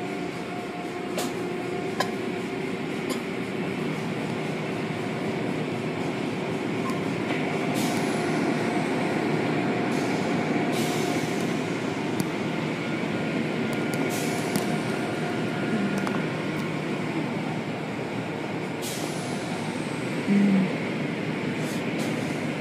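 Automatic car wash machinery running: a steady mechanical rush and hum, with a few short clicks and brief hissing swells.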